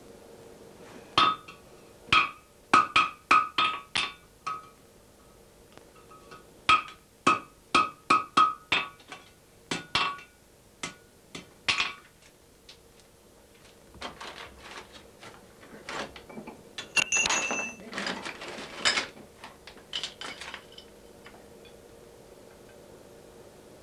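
Blacksmith's hammer striking hot iron on an anvil, each blow ringing with a clear metallic tone, in two quick runs of about eight or nine blows, then a couple of single strikes. In the second half come lighter clinks and a scraping rasp of metal handled at the anvil.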